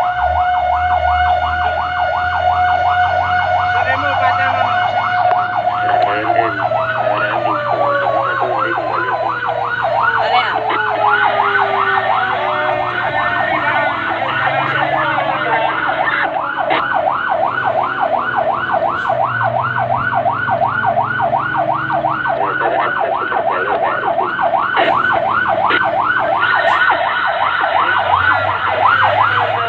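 Fire truck siren sounding a fast, repeating yelp. A second steady siren tone holds for several seconds, then slowly winds down in pitch. The truck's engine runs underneath.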